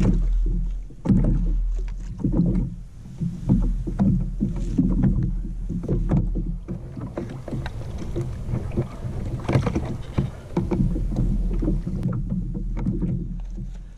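Water sloshing and slapping against a plastic Hobie Outback kayak hull, with wind buffeting the microphone. Scattered knocks and splashes come as a hooked grouper is brought alongside and lifted in a landing net.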